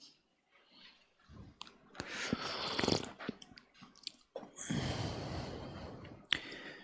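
Soft breathing sounds close to the microphone, two breaths of about a second each, with a few small mouth or handling clicks, the sharpest just before the end.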